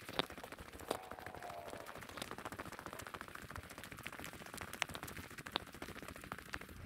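Faint footsteps on dry leaves and loose dirt: scattered small crackles and clicks.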